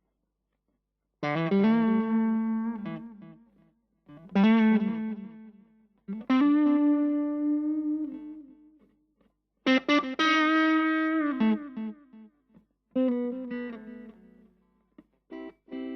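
Electric guitar (Fender Stratocaster) played through a Vox AC4TV valve amp: a run of chords, each struck and left to ring out and fade, starting about a second in.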